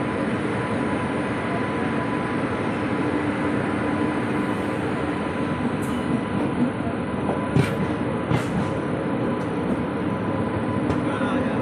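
Steady running noise of a passenger train heard from inside the coach as it moves along the track, with a steady hum under it. Two sharp clicks stand out about two-thirds of the way through.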